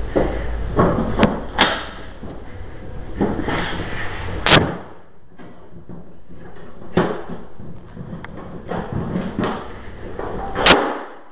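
Clicks and knocks of a tackle box being handled and its latch worked, with two sharp loud clicks, one about four and a half seconds in and one near the end. A low hum under the first part cuts off suddenly at the first of them.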